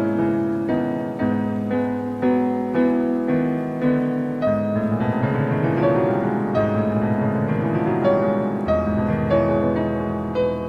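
Piano music, with notes and chords struck one after another.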